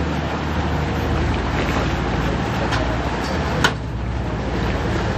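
Lake passenger ferry's engine running steadily: a low hum under a wash of noise, with one sharp click about three and a half seconds in.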